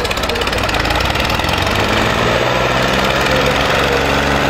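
Diesel tractor engines running hard under heavy load as tractors pull against each other in a tug-of-war. A loud, steady drone that settles onto a steady pitch about halfway through.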